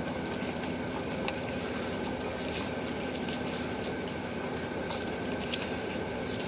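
Steady rain falling, with scattered sharp drops ticking.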